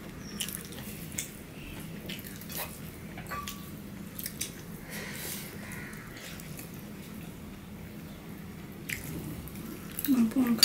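Eating sounds of people eating rice and curry by hand: scattered soft wet smacks and clicks of chewing and fingers working the food. A short burst of voice near the end is the loudest sound.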